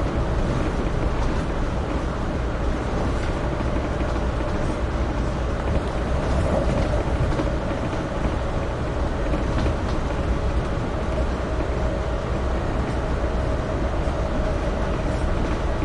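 Amtrak Northeast Regional passenger train running along the track, heard aboard: a steady rumble and rush with a constant hum.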